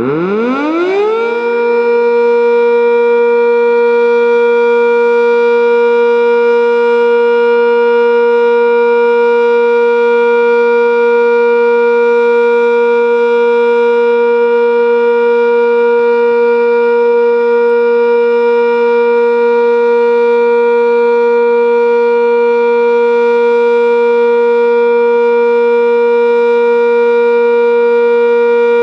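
Sentry 10V outdoor warning siren winding up from a stop and reaching full pitch within about a second and a half. It then holds a steady, loud alert signal: two pitches about an octave apart, with no rise and fall.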